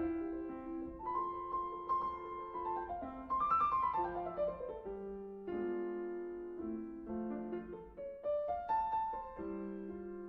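Background piano music: a classical sonata movement played at a moderate tempo, with a quick descending run of notes about four seconds in.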